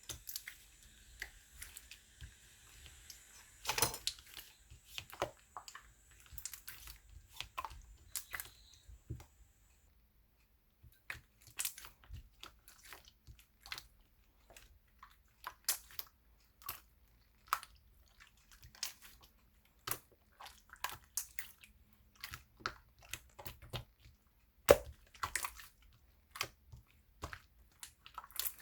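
Slime being squished and pressed by hand, making irregular sharp little pops and clicks, with a brief pause about a third of the way through.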